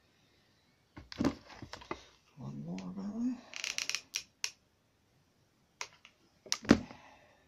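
Light clicks and knocks of a hot glue gun and small card pieces being handled on a cutting mat, with a short rising hum of a man's voice a few seconds in and a sharper knock near the end.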